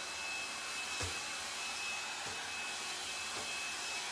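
L'ange Le Volume hot air brush blowing steadily: an even rush of air from its fan with a thin, steady high whine, while it is drawn through the hair.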